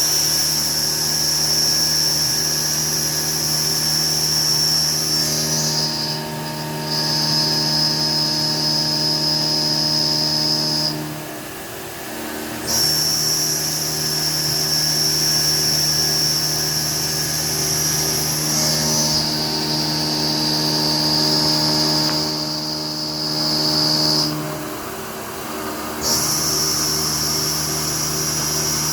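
Haas 5-axis CNC mill running a cutting program: a steady high spindle whine over lower machine hum. The whine drops its pitch a little about six seconds in, and the machine goes quieter twice, around eleven and twenty-five seconds in, for a second or two before the spindle comes back up.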